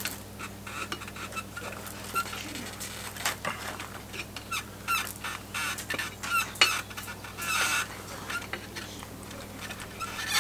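Woven willow rods of a crab pot clicking and creaking in quick, irregular crackles as the basketwork is handled and worked loose from its stand. A hen clucks now and then.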